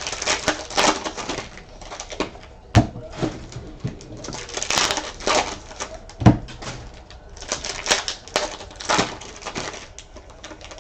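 Trading card pack wrappers crinkling and tearing open as cards are handled, in repeated short bursts, with a couple of sharp knocks on the table.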